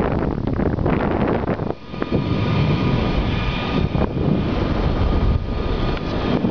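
Loud wind rushing over the microphone of a camera carried aloft on a parasail, dipping briefly about two seconds in.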